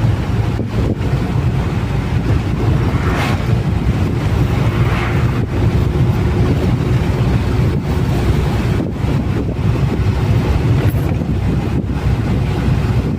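Truck driving on the road: a steady low engine and road rumble with wind buffeting the microphone.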